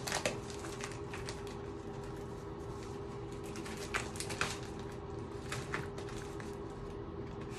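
Pink padded plastic mailer crinkling and rustling as it is opened and a box is slid out of it, with sharp crackles just at the start, twice about four seconds in, and again near six seconds. A steady low hum runs underneath.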